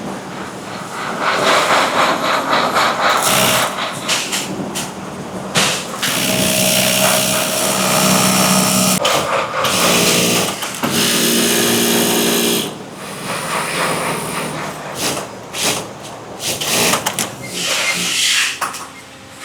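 Industrial production machines running, with motor whine and mechanical noise that shift every few seconds as machines start, stop and change speed.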